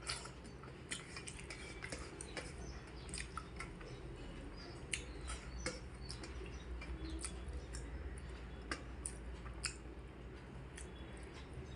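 A person eating at close range: irregular small clicks and smacks of chewing and handling food, over a steady low hum.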